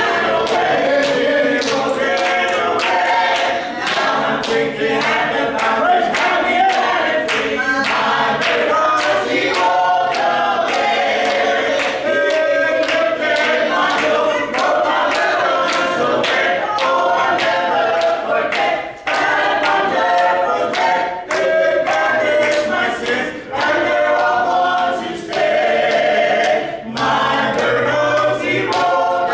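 Small mixed church choir of men and women singing a gospel hymn a cappella, with sharp hand claps keeping a steady beat.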